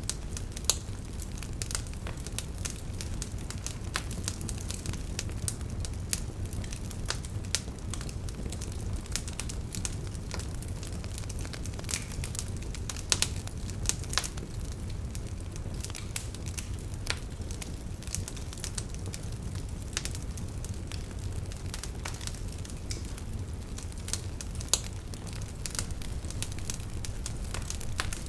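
Fire crackling: a steady low rumble with irregular pops and snaps, a few of them sharper and louder.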